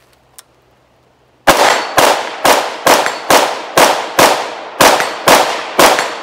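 AR-15 rifle firing ten rapid semi-automatic shots, about two a second, starting about a second and a half in. Each sharp crack trails off in echo.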